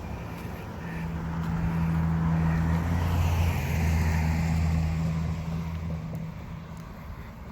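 A motor vehicle driving past, its engine hum and tyre noise swelling to a peak about three seconds in and then fading away.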